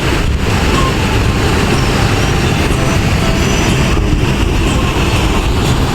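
Large waterfall's steady roar of falling water, heard close to the falls.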